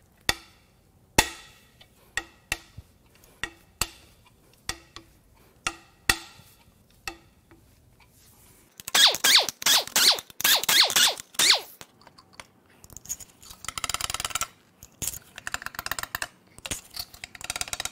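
Sharp metallic cracks, about one a second, as the tight main cap bolts on a 3.6L Pentastar V6 block are broken loose with a breaker bar. From about nine seconds in come bursts of fast metallic clicking and clinking as the bolts are worked out.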